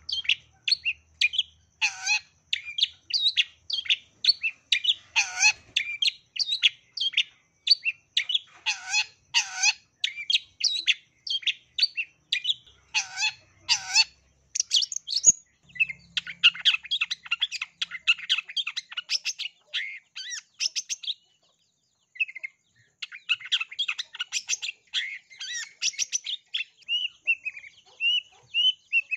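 Long-tailed shrike (cendet) singing a fast, unbroken run of short chirps, trills and whistles, with mimicked calls of other birds such as sparrow chatter worked into its song. There is a brief pause about three-quarters of the way through.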